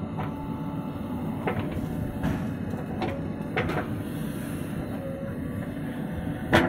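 Backhoe loader's diesel engine running steadily while its hydraulic arm works the bucket. A few sharp metallic clanks from the bucket and boom come through, the loudest near the end.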